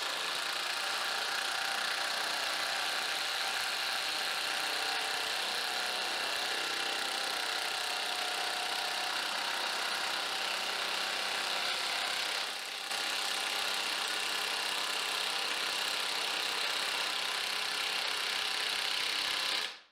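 Kobalt 24V XTR high-torque cordless impact wrench on its high setting, hammering steadily as it drives a 1-inch auger bit into a pressure-treated 6x6 wooden post. The hammering dips briefly about twelve and a half seconds in, then carries on.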